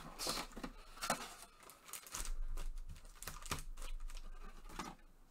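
Cardboard hobby box flaps and foil-wrapped trading-card packs being handled, with irregular crinkling, rustling and scraping.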